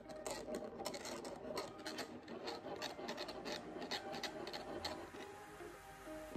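Plastic drinking straw being worked up and down through the lid of a plastic cup of thick drink, making a run of short scraping and squeaking rubs that thin out near the end.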